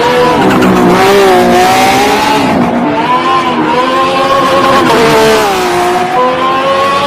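Race car engine sound effect: a high engine note that rises and falls several times as it revs.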